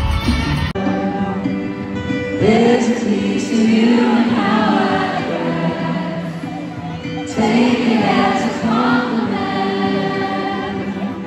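Live pop-rock concert heard from within an arena audience: a male lead singer sings two long phrases over sustained band chords. The sound changes abruptly less than a second in, where a heavier, bass-filled passage gives way to it.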